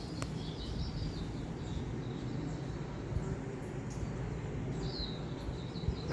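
Birds chirping in short clusters on a television nature programme, over a steady low rumble.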